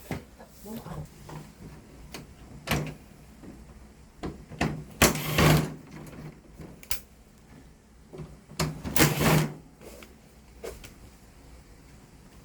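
Parts of a floor-standing air conditioner being handled and pulled apart during disassembly: a few short knocks, then two longer scraping, sliding sounds about five and nine seconds in, the first the loudest.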